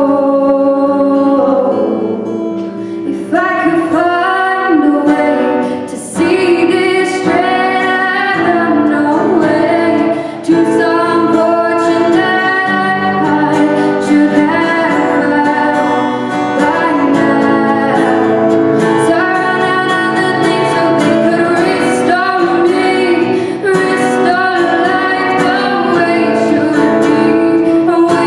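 Live pop-rock song: a singer's voice holding long notes over strummed guitar accompaniment.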